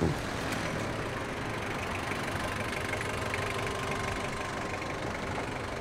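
A red Peugeot 205 hatchback's engine running steadily at low revs as the car creeps up and stops.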